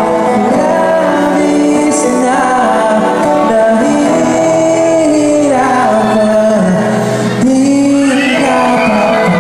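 Live music from a stage: singing, with both female and male voices, over an acoustic guitar, continuous and loud.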